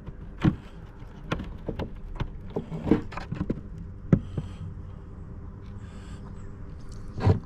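Wooden beehive frames and comb being handled during an inspection: scattered light clicks and knocks, with one louder knock near the end.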